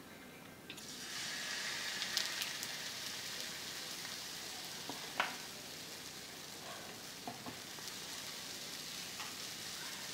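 Pancake batter sizzling on a hot tawa, starting suddenly about a second in as the batter goes onto the pan and then hissing steadily. A single sharp clink about halfway through.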